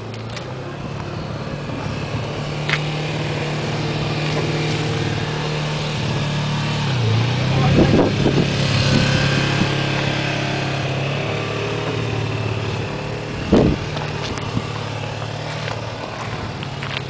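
Snowmobile's two-stroke twin engine idling steadily. Its pitch dips briefly about seven seconds in, and a couple of short knocks come about eight and thirteen seconds in.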